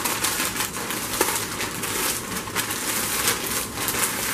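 Plastic snack bag full of cheese curls and broken dry ramen noodles being squeezed and worked by hand, a dense run of crinkling and crunching as the contents are crushed.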